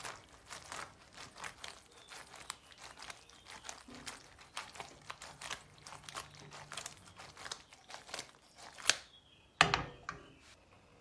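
Ravioli being tossed in an aluminium frying pan on a gas stove: a quick, irregular run of soft knocks and scrapes as the pasta slides and slaps against the pan. It ends with one loud clunk near the end, the pan coming down on the burner grate.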